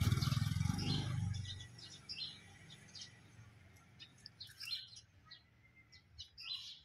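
A low rumble fades out over the first second and a half. After that, birds chirp in short, scattered calls.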